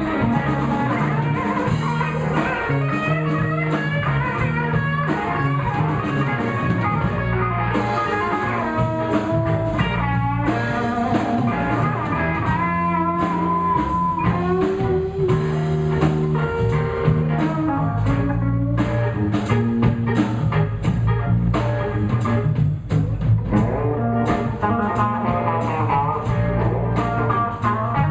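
Live blues band playing an instrumental break between sung verses: a guitar takes the lead with single-note lines and bent notes over bass and a drum kit keeping time.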